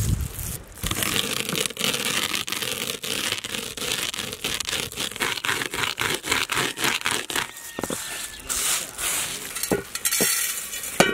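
Wooden rolling pin rolled hard over whole coriander seeds on a wooden board, crushing them with rapid, repeated crunching and crackling, about four strokes a second. Near the end the crushed seeds are scraped off the board and clink as they fall into a steel bowl.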